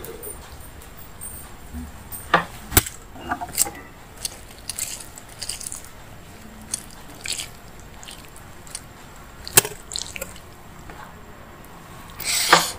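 Wet, sticky squishing and clicking of fingers mixing rice with paneer masala gravy, in short scattered bits with a few sharp clicks. A louder, denser burst of sound comes near the end as a handful of rice is lifted.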